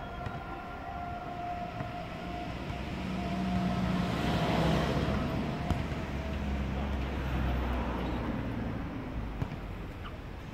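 Urban traffic: a road vehicle passes, swelling to its loudest about four to five seconds in and then fading, over a steady distant city hum. A wavering tone is faintly heard in the first few seconds.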